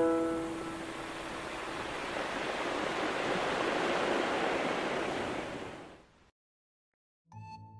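Ocean-wave sound effect: a hiss of surf that swells over a few seconds and fades out about six seconds in. At the start a piano note rings on and dies away. After a moment of silence, new music starts near the end.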